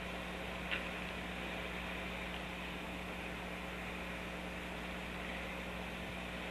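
Steady hum and hiss, with a short, high chick peep under a second in and a fainter one a little later.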